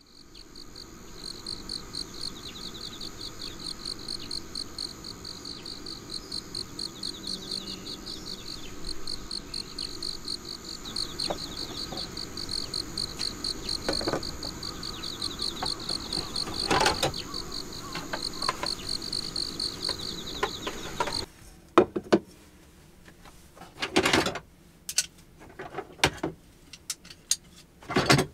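Insects chirping in a steady chorus of fast repeating pulses, which cuts off suddenly about 21 seconds in. Then a few sharp clatters and knocks of dishes and plastic containers as dried dishes are lifted from a dish rack and put away.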